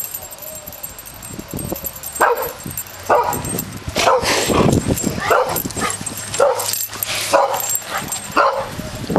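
Boxer–Dalmatian mix puppy giving a string of short, high play barks and yips, about nine in a row starting about two seconds in.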